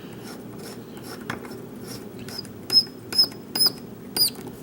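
A Zing LOTO padlock being worked with its key: small light clicks, then four short, high-pitched squeaks in the second half, the last one rising in pitch.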